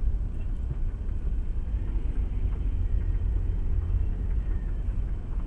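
Steady low rumble of a car driving, starting suddenly and holding even throughout.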